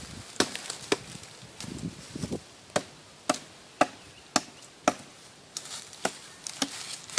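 A short bladed hand tool chopping into the soil and roots among dry leaves at the base of small trees: sharp, evenly spaced strikes about two a second, pausing briefly about a second in.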